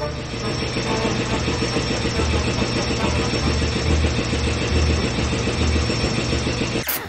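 A machine running with a steady high whine and a low throb about two or three times a second, stopping abruptly with a click near the end.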